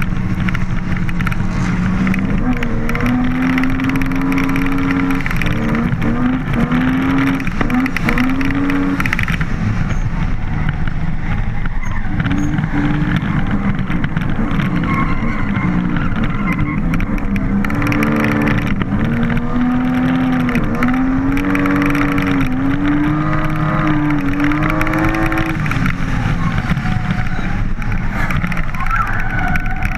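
A BMW drift car's engine, heard from on board, its note rising and falling again and again as the throttle is worked, over a steady rush of road and wind noise.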